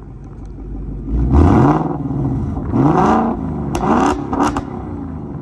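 2024 Ford Mustang GT's 5.0-litre V8 through a Corsa Sport exhaust with an X-pipe, idling and then revving three times on its own, each rev rising and falling in pitch: the key fob's remote-rev feature, set off by pressing unlock then lock.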